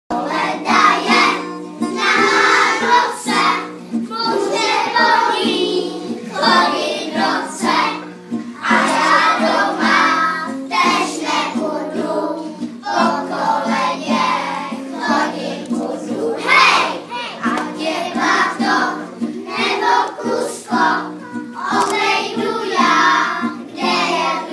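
A group of young children singing a song together in unison, over held instrumental notes.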